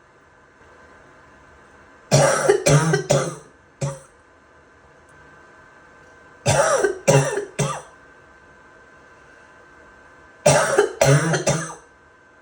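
A person coughing in three fits a few seconds apart, each fit three or four quick, harsh coughs: a wet, barking cough of someone who is sick.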